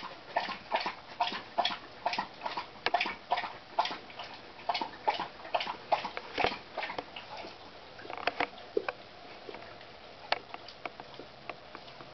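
A dog chewing at its food bowl: short chewing sounds in an even rhythm, about two or three a second, thinning to scattered clicks after about seven seconds.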